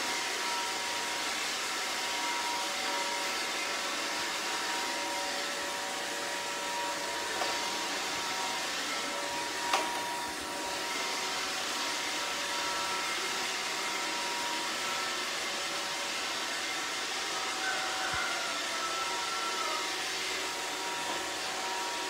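iRobot Roomba robot vacuum running across a tiled floor. Its vacuum and brush motors make a steady whirring hum with a few thin whining tones. There is one sharp click just under ten seconds in.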